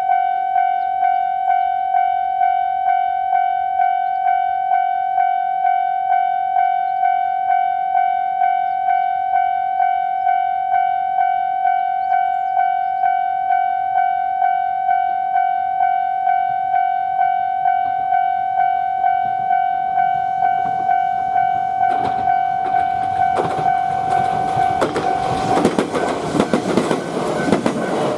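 Japanese level crossing's warning bell ringing its steady, even 'kan-kan' beat. About three-quarters of the way through, a train rumbles and clatters over the crossing, swelling to the loudest sound and drowning out the bell in the last few seconds.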